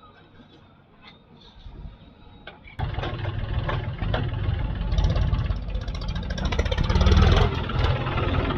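Faint at first, then about three seconds in a heavy diesel engine of a backhoe loader or tractor comes in suddenly and runs loud, its level rising a little further on.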